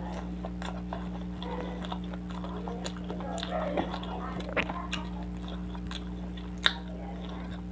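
Close-miked mouth sounds of a man chewing and eating fish curry with paratha by hand, with small wet, sticky noises as his fingers work the curry and fish. A steady low hum runs underneath, and a sharp click sounds near the end.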